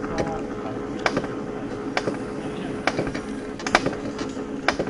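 Alpine coaster sled being hauled up the lift section of the track: a steady mechanical hum with a sharp click about once a second.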